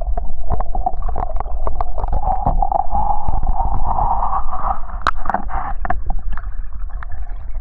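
Water heard from below the surface: a Labrador retriever paddling and a person wading stir the water into a muffled, steady rumble with gurgling and scattered small clicks, and one sharper click about five seconds in.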